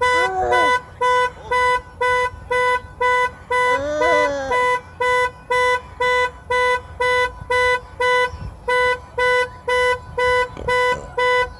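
Car alarm honking the car's horn over and over, steady evenly spaced blasts about two a second.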